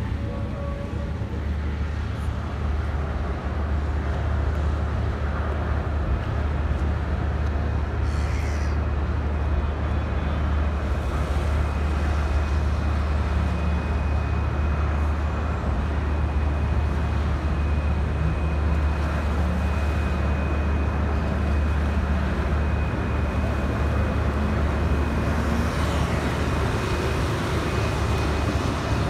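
Steady low rumble of a passenger ferry's diesel engines, running while the ferry lies alongside the pier, under a general hum of city traffic. A faint, steady high whine joins about halfway through.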